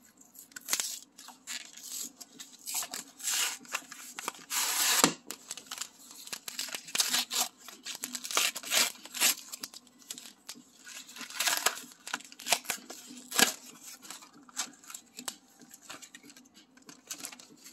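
Cardboard-and-paper retail packaging of Pokémon card booster packs being torn open by hand: a run of irregular ripping and crinkling, the longest and loudest rip about five seconds in, with a couple of sharp snaps.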